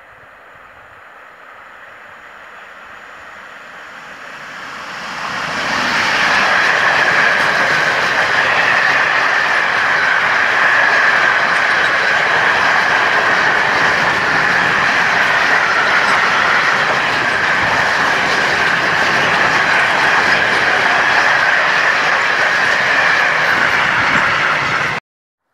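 Freight train approaching, growing louder for about five seconds. A long rake of covered sliding-wall freight wagons then rolls past close by, the wheels rumbling on the rails with a steady high-pitched ring over the noise. The sound cuts off suddenly near the end.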